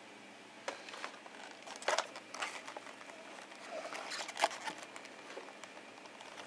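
Faint handling noise: soft rustling and a few scattered clicks as small objects are picked up and moved about.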